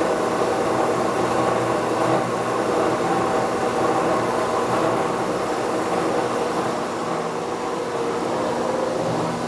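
Northfield 25-inch No. 7 planer running on its 7.5 horsepower electric motor: a steady machine hum with a few constant tones.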